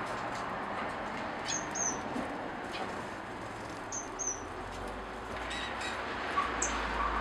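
Small aviary finches giving a few short, high chirps, two of them in quick pairs, over a steady background hiss.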